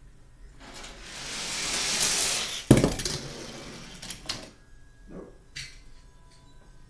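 Hot Wheels die-cast toy car rolling down a track with a rising rushing noise, then landing with one sharp clack near the middle. It rattles on across the floor with a few small clicks.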